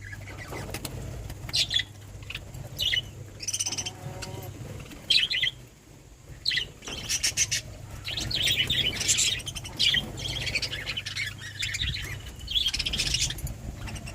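Pet budgerigars chirping and chattering in short scattered bursts of high calls, busier in the second half, over a steady low hum.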